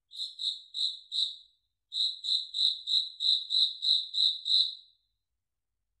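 House cricket chirping, high-pitched and evenly paced: four chirps, a short pause, then nine more at about three chirps a second.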